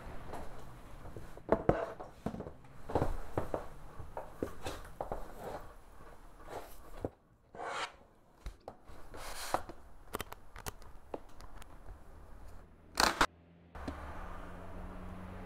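Scattered small knocks, clicks and rustles of a hard case and clothing being handled on a table, with a sharp louder noise about 13 seconds in. A steady low hum follows to the end.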